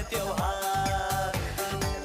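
Upbeat dance-pop music with a steady drum beat and long held melody notes.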